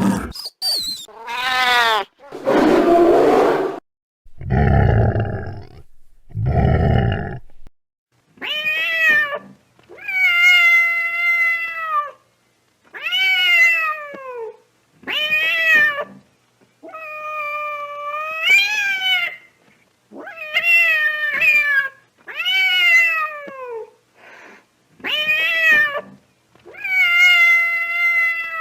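Domestic cat yowling: about ten drawn-out howls, each rising then falling in pitch, repeated every second or two. Before the yowls start, several short noisy bursts and low heavy sounds are heard.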